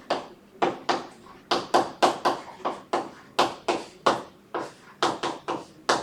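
Writing on a classroom board: a quick, irregular run of short taps and strokes, about three a second, each dying away within a fraction of a second.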